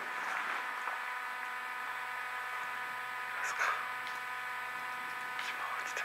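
Steady electrical hum-buzz, with two short faint sounds over it about three and a half and five and a half seconds in.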